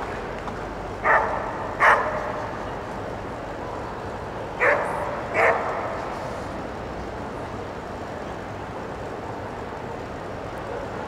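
A dog barking four times, in two quick pairs about three seconds apart, over the steady murmur of a large indoor crowd.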